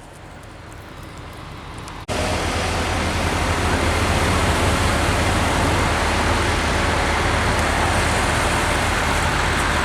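Heavy machinery engine running steadily with a deep rumble and a broad noise over it, loud from about two seconds in after an abrupt jump. Before that a quieter noise slowly grows louder.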